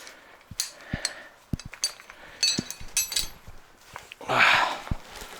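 Caving gear being unclipped from the rope: metal carabiners and descender clinking in a quick cluster of ticks about halfway through, among scattered knocks, with a short rustle near the end.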